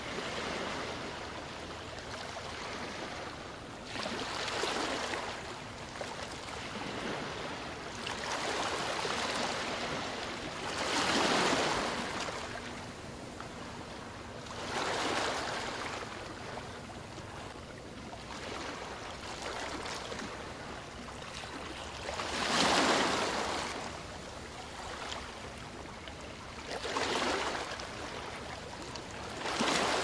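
Sea waves breaking and washing up the shore: a steady rushing hiss that swells and fades with each wave every few seconds, loudest about eleven and twenty-three seconds in.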